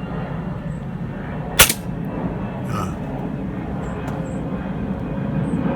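A single air rifle pellet shot, one sharp crack about one and a half seconds in, over a steady low background rumble. A fainter knock follows about a second later.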